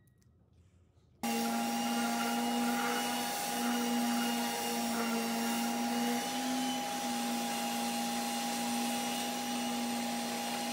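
Festool dust extractor running, drawing through its hose from a handheld electric sander, switching on abruptly about a second in. A steady rush of air with a constant hum and whine.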